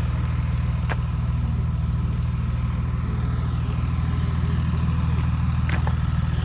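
An engine idling steadily, a low even hum. A couple of light clicks are heard about a second in and again near the end.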